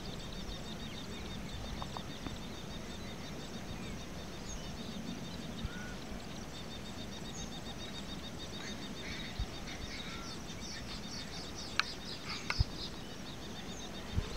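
Open-field ambience: scattered bird chirps over a steady high-pitched trill, with a low rumble underneath. A burst of chirps and two sharp clicks come about twelve seconds in.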